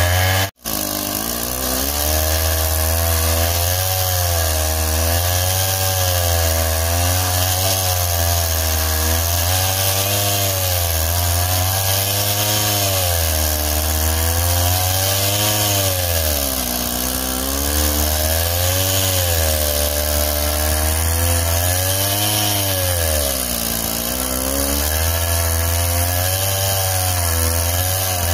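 Chainsaw running and cutting into a felled tree trunk, its engine pitch rising and falling every couple of seconds as it bogs under load and picks up again. The sound cuts out for an instant about half a second in.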